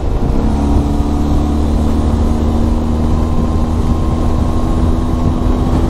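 Benelli TRK 502X's 500 cc parallel-twin engine running at a steady cruise, its note held steady over a constant low rumble.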